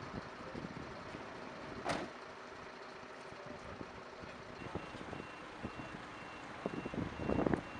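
A vehicle's reversing alarm beeps evenly at one high pitch from about halfway through, over wind on the microphone and street traffic noise. There is a sharp click about two seconds in and a burst of louder knocks near the end.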